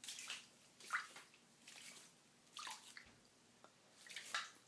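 Water dripping and plinking into standing floodwater on a basement floor: a few separate drips and small splashes, about a second or more apart.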